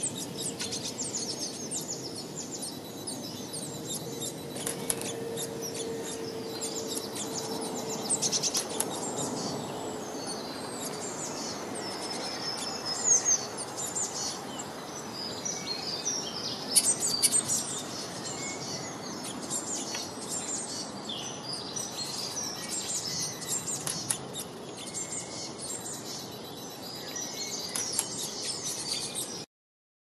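A chorus of several small songbirds chirping and trilling, many quick high calls overlapping over a steady background hiss; it cuts off abruptly near the end.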